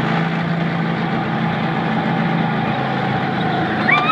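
Go-kart engines running steadily at speed, giving an even drone.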